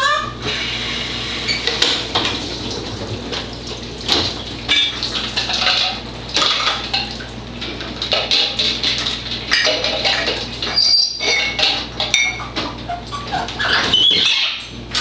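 Lilac-crowned Amazon parrot making an odd, irregular run of clicking and crackling sounds, with short high squeaks mixed in.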